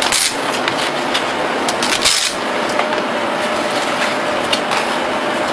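Handling of an IR touch-screen overlay frame and the paper sheeting under it: scattered light clicks and knocks, with two short rustles, one at the start and one about two seconds in, over a steady hiss.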